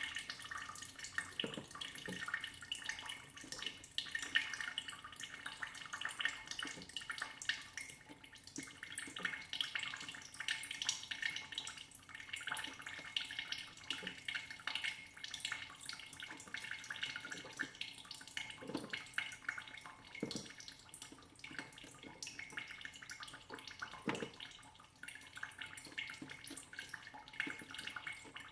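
Melting ice dripping and trickling: many small drips of meltwater in quick succession, with a few deeper drops now and then.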